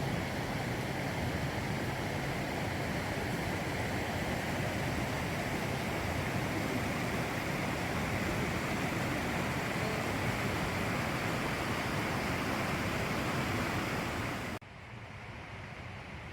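Steady rushing noise of wind outdoors, with no separate events in it. Near the end it drops suddenly to a much quieter hiss.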